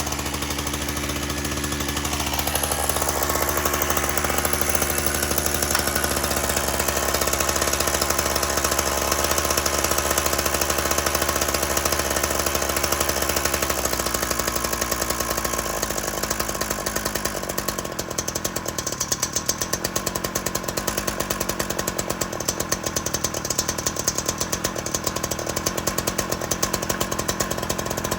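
Ryobi two-stroke gas chainsaw running at an idle that is too fast. About fourteen seconds in, and again a few seconds later, the engine speed steps down, settling into a slower, choppier idle as the idle is turned down.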